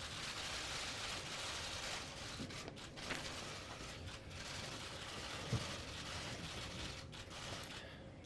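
Steady hiss of room noise with a couple of faint clicks.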